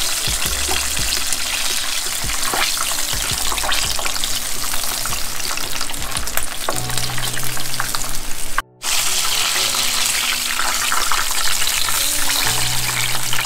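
Chicken wings deep-frying in hot oil in a skillet on their second fry for a crisp skin: a steady, dense sizzle and crackle that cuts out for a moment about nine seconds in.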